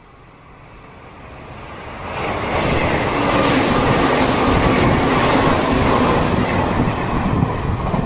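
Electric train approaching and passing close by at speed: a rising rumble over the first couple of seconds, then loud wheel-and-rail running noise with rail-joint clatter as the cars go past.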